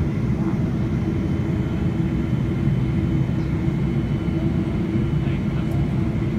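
Cabin noise of a Boeing 777-300ER in flight, heard from a window seat beside the engine: a steady low rumble of its GE90-115B turbofan and the airflow, with a few faint steady tones above it.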